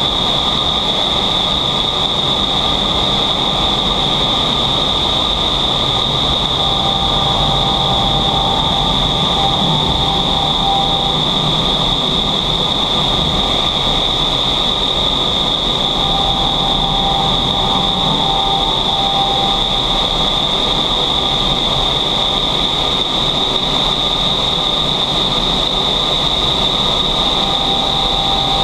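Vertical wind tunnel for indoor skydiving running at flying speed: a steady loud rush of air, with a constant high whine on top.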